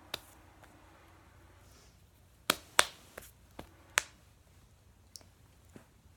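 A few short, sharp clicks and taps, the loudest two close together about two and a half seconds in, with fainter ones scattered around them.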